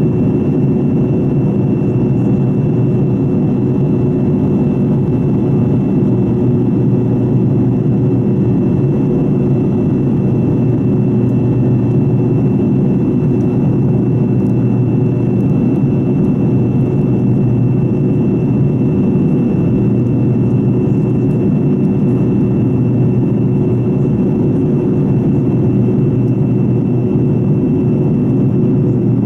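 Fokker 70's rear-mounted Rolls-Royce Tay turbofan running steadily in flight, heard from inside the cabin right beside the engine: a dense, even rumble with a steady high whine over it.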